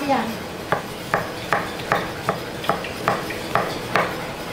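A metal utensil knocking against a cooking pot in a steady rhythm, about two knocks a second, as in stirring or working food in the pot.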